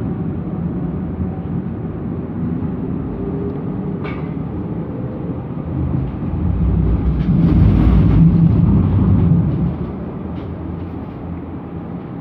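Tram running along its track, heard from inside the passenger cabin: a steady rumble of wheels on rail, with one sharp click about four seconds in. The rumble swells louder for a few seconds past the middle, then settles.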